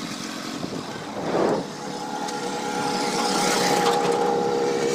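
Motorcycle engine running as the bike rides along, a steady hum that settles in about a second and a half in and grows a little louder toward the end, with wind rushing over the microphone.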